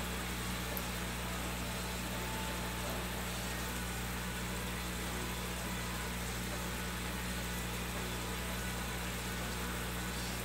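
Steady low hum of an aquarium air pump with a constant hiss of air, driving a bubbling sponge filter in the fry tank.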